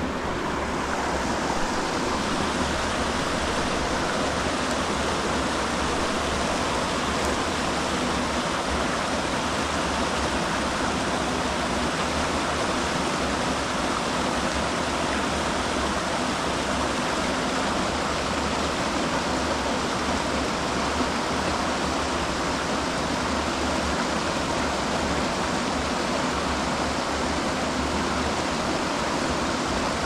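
Mountain stream water rushing steadily, an even unbroken sound of flowing water.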